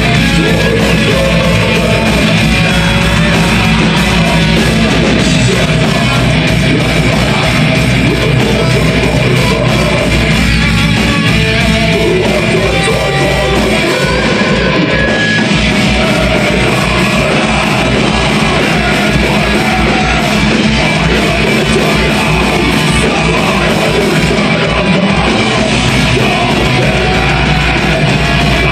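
Melodic death metal band playing live: heavily distorted electric guitars, bass guitar and fast drumming, with harsh shouted vocals over it.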